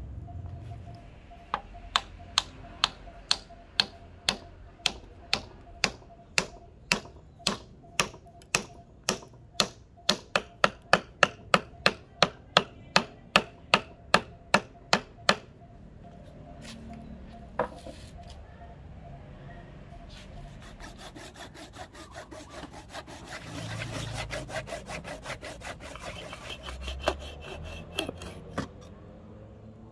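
A steel claw hammer tapping a wooden wedge into the top of a rosewood hatchet handle, seated in the axe head's eye: about thirty sharp taps, roughly two a second and quickening to about three a second before they stop. Later a steel blade scrapes along the rosewood handle in quick rasping strokes.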